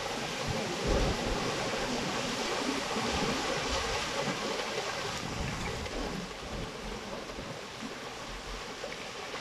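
Rockfall: rocks and debris tumbling down a steep rocky slope in a continuous rushing rumble, with a heavier thump about a second in.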